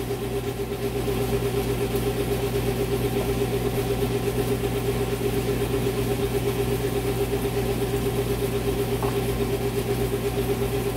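Steady mechanical hum of a running motor or fan, pulsing rapidly and evenly, with a faint hiss above it.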